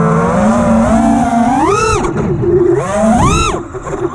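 Motors and propellers of a 5-inch FPV racing quadcopter (T-Motor F60 Pro IV 1750kv brushless motors on 6S with three-blade props) whining and changing pitch with the throttle: two sharp punches up in pitch, about two seconds in and again a second later, then a brief dip in level near the end as the throttle is cut.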